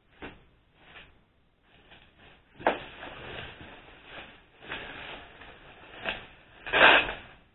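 Bubble wrap crinkling and rustling as it is cut open with a knife and pulled off a boxed package, in irregular bursts: a sharp crackle a few seconds in and the loudest rustle near the end.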